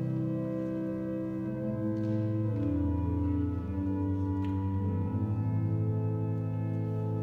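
Organ playing slow, held chords that change a few times, an introduction leading into the sung psalm.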